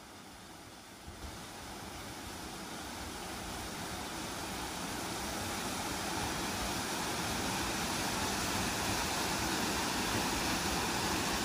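Small waterfall pouring into a rock pool in a mountain stream: a steady rush of water that grows steadily louder.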